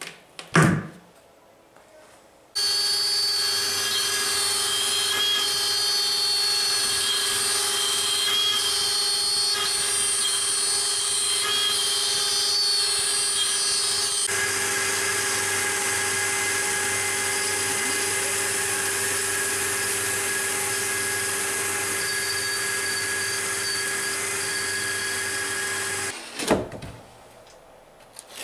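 A homemade CNC router's spindle motor runs as it cuts a sheet of board: a steady, high machine whine. It starts about two and a half seconds in, changes tone about halfway and stops a couple of seconds before the end. There is a sharp knock just after the start and another just after the router stops.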